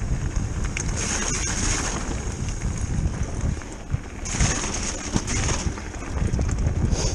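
Wind buffeting the microphone over the rumble and rattle of an electric mountain bike descending a loose, wet, stony track, with scattered knocks as the tyres hit rocks.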